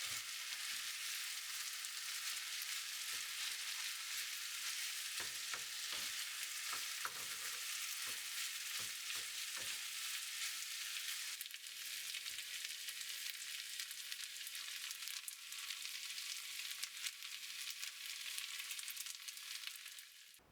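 Pepper rice sizzling in a hot frying pan, with a utensil knocking and scraping against the pan a number of times in the first half. The sizzle shifts slightly about halfway through and stops just before the end.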